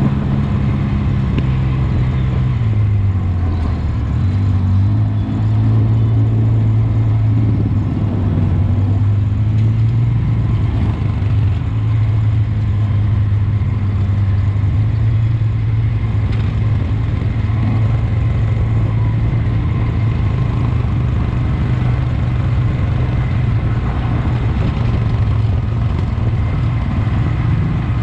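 Side-by-side off-road vehicle's engine running. Its pitch drops about three seconds in, then holds steady.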